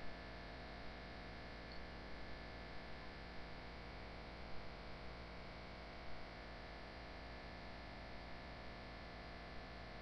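Steady electrical hum with a faint hiss, broken now and then by a few faint soft ticks.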